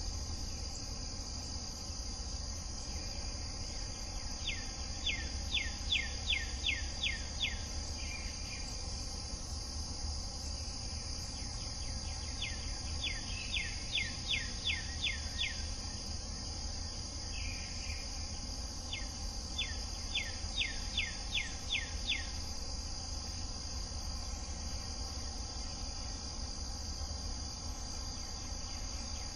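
Steady high chorus of crickets, with a songbird whistling three phrases of quick down-slurred notes, about eight notes each, several seconds apart.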